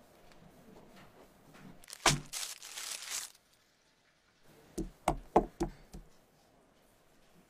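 A sharp knock and about a second of paper crinkling, then a quick run of about five knocks as raw chicken drumsticks are set down one after another on a wooden cutting board.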